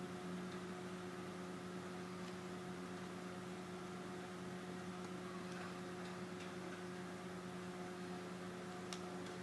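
A steady electrical hum with a few faint ticks.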